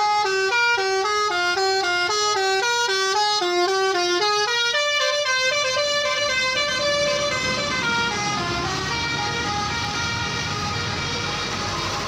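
Gunung Harta coach's Basuri telolet horn, a multi-tone musical bus horn, playing a quick melody of short stepped notes as the bus drives past. The notes fade after about eight seconds while the rush of the bus's engine and tyres grows.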